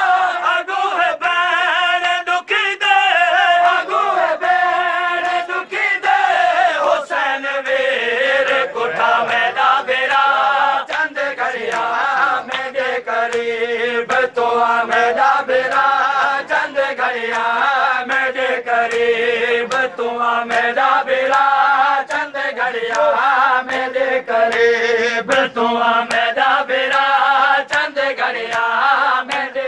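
Men chanting a noha, a Muharram mourning elegy, in unison, over rhythmic matam: flat hands striking chests in a steady beat.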